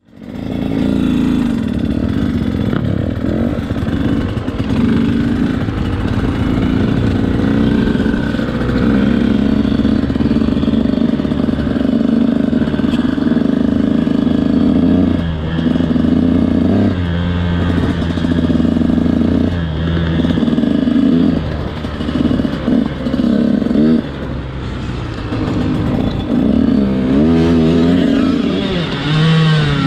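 On-board sound of a KTM SX 125 two-stroke single-cylinder motocross engine. It runs at a fairly steady pitch for the first half, then revs rise and fall repeatedly as the rider works the throttle, with quick swings in pitch near the end.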